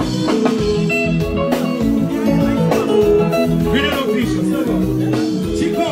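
Loud dance music with a steady beat, playing at a party.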